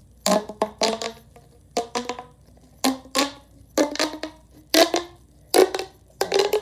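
Plastic pop tube fidget toy being stretched and squeezed, its corrugated ribs snapping open and shut in a loud string of sharp pops, often in quick pairs.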